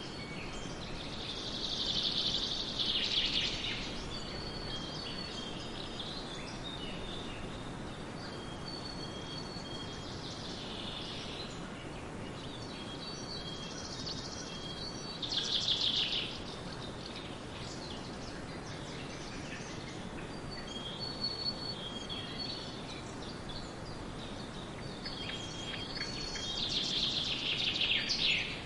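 Birds singing: four louder bursts of fast high chirps and trills, about a second in, around ten and fifteen seconds in, and near the end, with short steady whistled notes between them, over a steady background hiss.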